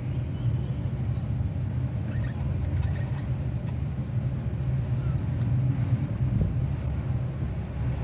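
A steady low rumble, with a few faint, short budgerigar chirps now and then.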